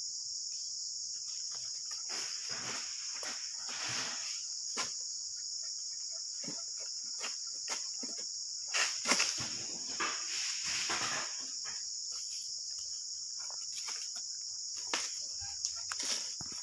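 A steady, high-pitched insect chorus, with scattered rustling, scraping and knocks as a long harvesting pole is worked among the oil palm's fronds. The rustling and knocks are loudest about nine seconds in.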